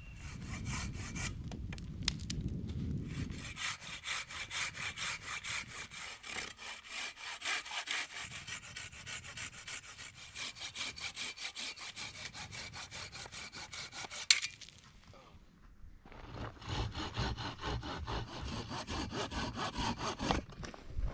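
Hand saw cutting through green alder poles in quick, even back-and-forth strokes. A sharp crack comes about fourteen seconds in, the sawing stops for a couple of seconds, then starts again.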